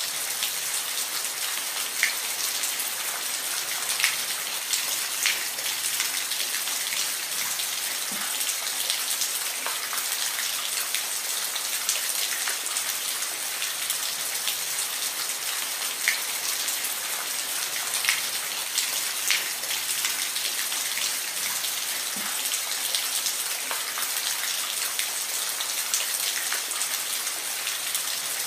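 Steady rain falling, an even hiss with occasional louder individual drops ticking on a surface.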